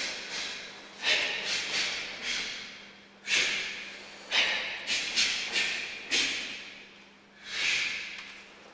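A karateka's sharp, forceful breaths out, one with each technique of a kata: about a dozen short hissing bursts in quick runs, with a longer, slower breath near the end.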